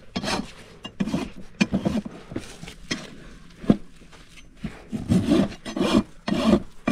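A hoof rasp scraping across a horse's hoof wall in a light once-over of the trimmed hoof. The strokes are sparse and irregular at first, then come steadily about two a second from about five seconds in.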